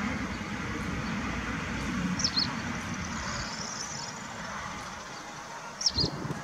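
Steady low outdoor background noise with a bird chirping briefly twice, about two seconds in and again near the end.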